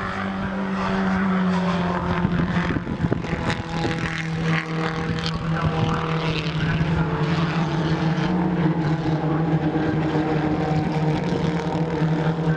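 A pack of Holden Gemini race cars' four-cylinder engines running hard at high revs as they pass, a steady engine note that gets louder about a second in.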